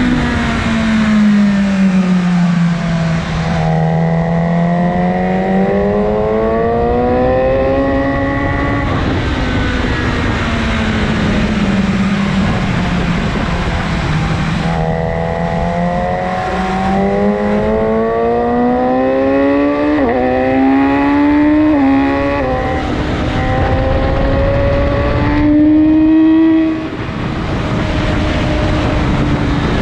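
BMW S1000RR inline-four sportbike engine with an Akrapovic exhaust, accelerating hard on track. The pitch climbs through the revs, then steps down at the upshifts before climbing again, twice, over a lower engine drone that rises and falls.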